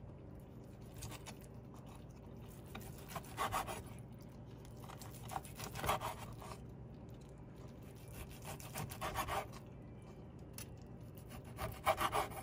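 Cleaver slicing through a seared steak on a wooden cutting board: about four short rasping cuts a few seconds apart, the blade meeting the board at the end of each stroke.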